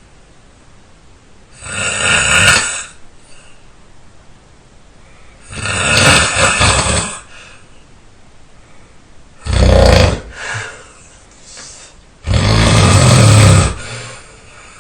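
A person snoring loudly: four snores about every three to four seconds, the third short with a weaker one just after it, the last one long.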